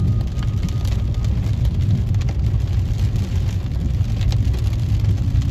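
Steady low rumble of a car and its tyres on a wet road, heard from inside the cabin, with scattered taps of raindrops on the roof and windscreen.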